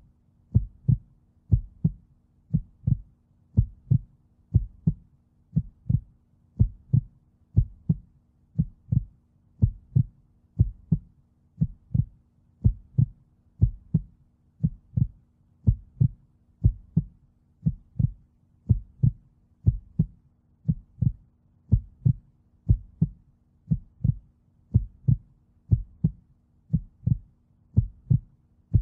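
Car's indicator or hazard-light flasher ticking steadily, about two short dull ticks a second, over a faint steady low hum.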